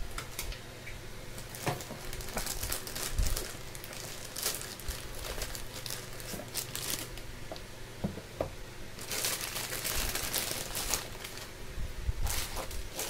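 Packaging being handled while a speaker box is unpacked: irregular crinkling and rustling with scattered clicks, and a longer stretch of rustling about nine seconds in.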